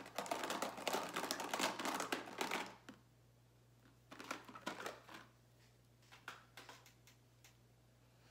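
Small plastic lip balm tubes clicking and rattling as they are handled: a dense clatter for the first three seconds or so, then a few scattered clicks.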